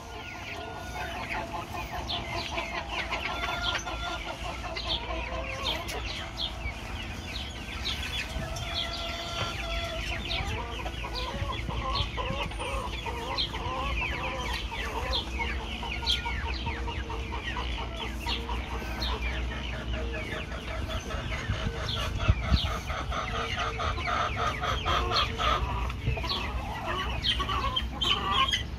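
Chickens clucking busily, with a rooster crowing now and then.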